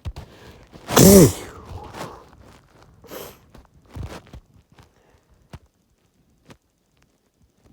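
A person sneezing once, harsh and loud, the voice rising then falling in pitch, about a second in; a softer breath follows a couple of seconds later, among small clicks.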